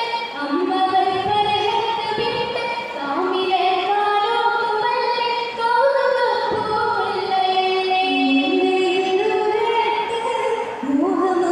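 Female singers performing an Oppana song, a Mappila song, as a sung melody that moves step by step through the whole stretch.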